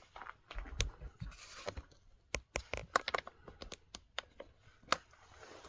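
Scattered sharp clicks and light scraping of plastic chainsaw parts being handled and pressed into place by hand while a Husqvarna 450 Rancher is put back together. A quick run of clicks comes in the middle, with softer rustling before it.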